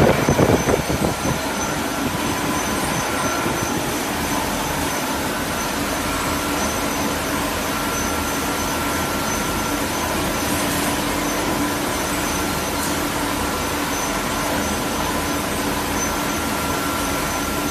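Automatic glass bottle washing machine running steadily: a constant mechanical hum with several held whining tones over an even noise.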